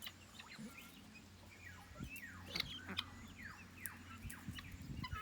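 Poultry making soft, high chirping calls: many short peeps, each falling in pitch, scattered irregularly and faint.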